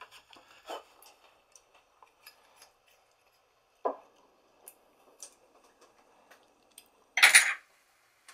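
Workshop handling sounds: scattered light clicks and taps, a single knock about four seconds in, and a short, louder clatter near the end.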